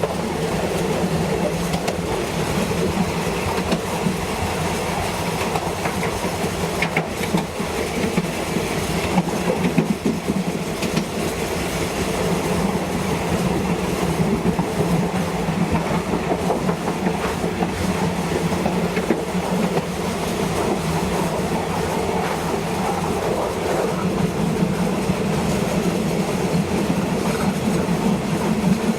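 A train running along the track, heard from on board: a steady rumble with wheels clattering over the rail joints.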